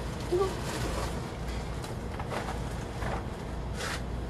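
Potting soil being scooped and scraped out of a plastic tub by hand and with a small plastic pot: three or four short gritty scrapes in the second half, over a steady low rumble of wind or background noise.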